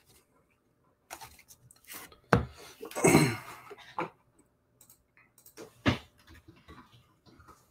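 Trading cards being handled and set down on a tabletop: scattered rustling and small ticks, with a sharp knock a little after two seconds, a louder rustle around three seconds, and another sharp knock near six seconds.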